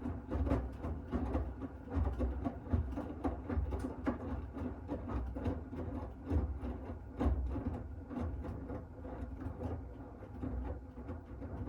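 Miele W1 Active WCA 030 front-loading washing machine in its wash phase: the drum turning the wet laundry, with irregular soft knocks and splashes that swell and fade every second or two over a low rumble and faint motor hum.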